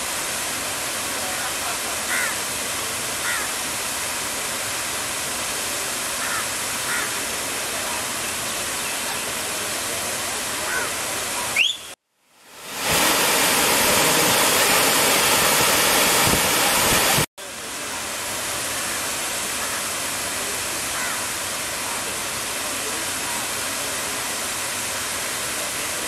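Water pouring over a stepped stone weir in a steady rush. About halfway through the sound drops out briefly, then a louder, closer rush of falling water runs for about five seconds and cuts off suddenly back to the steadier rush.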